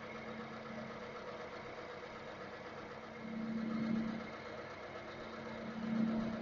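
Milling machine running, its end mill cutting an angled face on a mild steel bar with the side of the cutter: a steady machine hum with a held low tone. The cutting sound swells louder twice, a little past halfway and again near the end.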